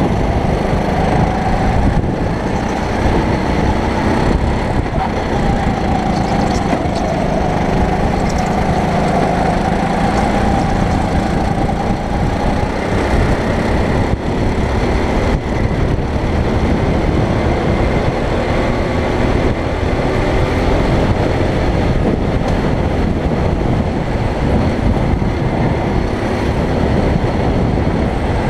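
Go-kart engine running at race pace on a Sodi rental kart, its pitch rising and falling with the throttle over a steady low rumble.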